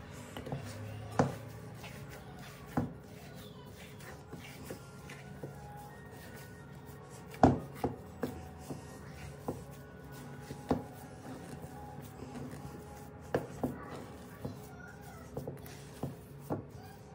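Hands kneading and squeezing tahini-walnut cookie dough in a ceramic bowl: soft squishing and rubbing, broken by irregular sharp knocks, the loudest about halfway through.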